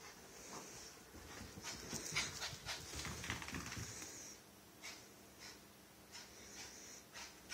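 A small, wet dog panting hard, with scuffling and soft knocks as it rubs itself dry and scampers about.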